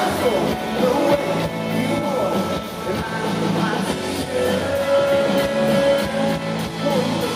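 Live band playing a country-pop song with electric guitar through a large concert PA, recorded from the audience. A long held note comes about halfway through.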